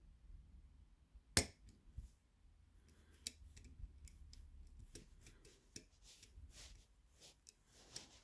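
Lock picks and tension wrench working inside a challenge lock: scattered small metallic clicks and scrapes, with one sharp click about a second and a half in. The clicks are the lock's pins giving feedback to the pick.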